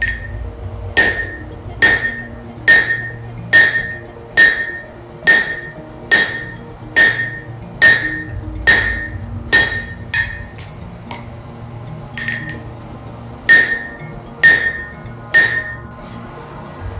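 Hand-hammer blows on red-hot car-axle steel on an anvil, drawing out a taper. There is a steady run of strikes about once a second, each with a clear ringing anvil note, then a short pause with a few light taps and four more blows near the end. Background music plays underneath.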